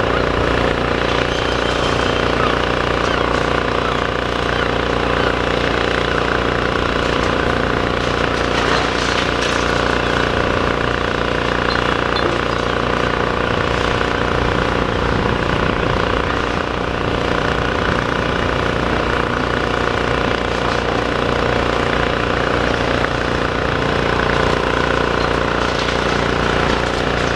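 Demolition excavator's diesel engine running steadily, with a few faint knocks as it works.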